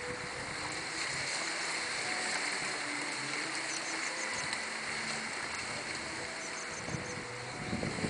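Outdoor ambience: a steady hiss with two short runs of rapid high bird chirps, about halfway through and again later, and a brief low rustle near the end.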